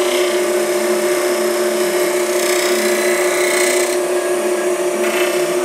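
Grizzly G0733 wood lathe running at about 1,800 rpm with a steady motor whine, while a turning tool cuts the spinning cedar spindle. The cutting hiss swells about two seconds in and again near the end.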